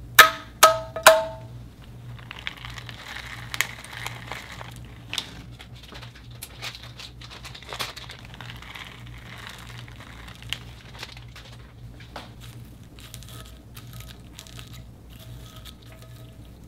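Clear slime pressed by a finger, giving three loud sharp pops in the first second or so. Then a crackling patter of small foam beads landing on the slime, and scattered soft clicks as hands work the beads in.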